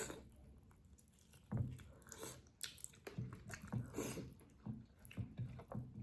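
Wet chewing of rice in chicken gravy, close to the microphone: irregular smacking and squishing mouth sounds that start about a second and a half in.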